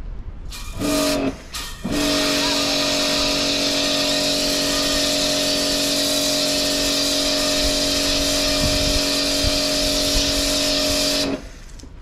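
Kärcher high-pressure washer with a wet sandblasting attachment, its water-and-sand jet hissing against a steel hull over the pump's steady hum. Two short blasts come about a second in, then a steady run of about nine seconds that cuts off near the end.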